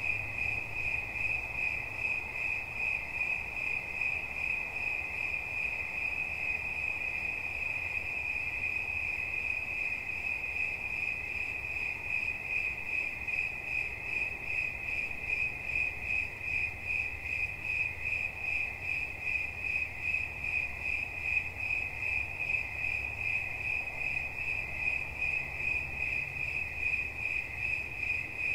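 A cricket chirping continuously in an even, unbroken rhythm, several chirps a second on one high tone.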